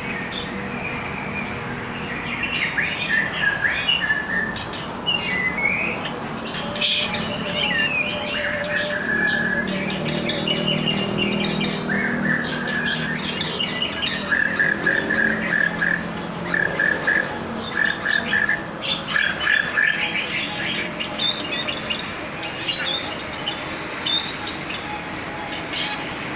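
Songbird singing a long, varied song of quick chirps and trills, with a run of evenly repeated notes in the middle, the song of a bird kept and shown as a contest champion.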